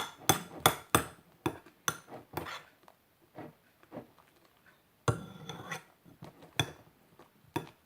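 A spoon clinking and scraping against a bowl as glue and colouring are stirred together for slime: a quick run of sharp clinks for the first two and a half seconds, a quieter stretch with a few soft taps, then scraping with more clinks from about five seconds in.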